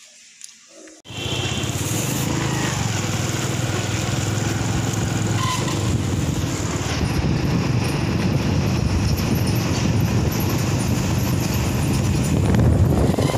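Steady vehicle and road noise recorded from a vehicle moving along a street. It starts abruptly about a second in, after a brief quiet stretch.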